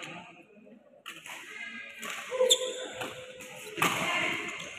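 A badminton rally: a few sharp strikes of racket on shuttlecock, about a second in, around the middle and shortly before the end, with footwork on the court floor in between.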